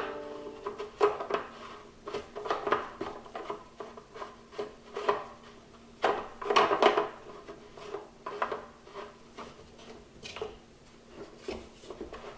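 Irregular clinks, knocks and scraping of metal parts as a leg of a Cadac Carri Chef 2 gas barbecue is lined up on its notch and screwed onto the upturned burner base.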